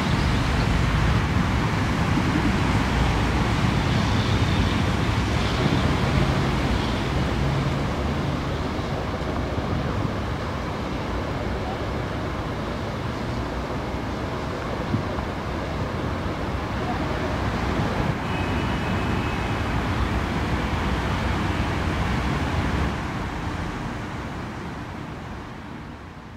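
Steady outdoor rumble of road traffic, with wind on the microphone; it fades out near the end.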